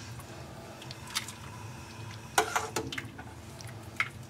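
A few light clinks and knocks of kitchen utensils and dishes, three in all, the middle one ringing briefly, over a low steady hum.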